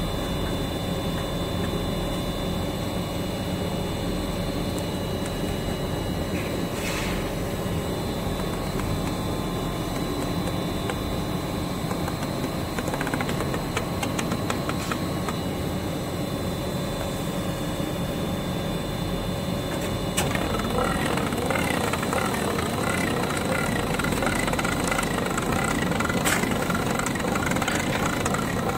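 Steady factory machinery hum. About twenty seconds in, the automatic plastic filament wrapping machine runs, adding a louder, rhythmic whirring as it wraps the filament bundle in plastic film.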